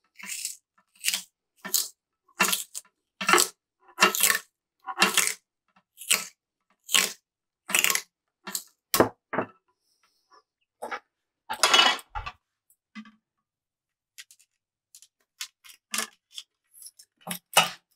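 Masking tape peeling and crackling as it is wound turn by turn onto a graphite fly rod blank to build a reel-seat arbor: a short crackle with each turn, a little more than one a second, for about nine seconds. A longer, louder crackle follows about two-thirds of the way in, then a few faint ticks.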